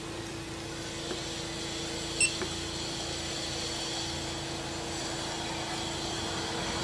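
A steady single-pitched hum, with one short high beep about two seconds in.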